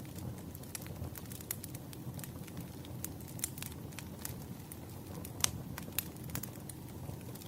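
Campfire crackling: a steady low rumble of burning wood with irregular sharp pops and snaps. The loudest snap comes a little past the middle.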